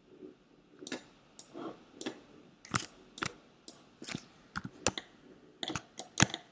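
Computer keyboard and mouse clicking: over a dozen sharp, irregularly spaced clicks, as keys and buttons are pressed while working in animation software.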